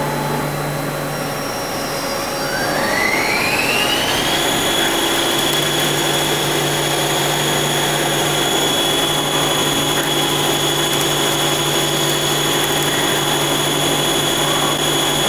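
Mazak CNC lathe running its program: the spindle drive whine rises over about two seconds as the spindle comes up to speed, then holds steady. Underneath are the steady rush of flood coolant spraying inside the enclosure and a low machine hum.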